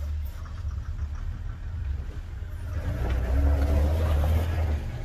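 Jeep 4x4 driving through snow and passing close by: a low engine rumble with tyre noise in the snow, getting louder to a peak about three and a half to four and a half seconds in, then easing off.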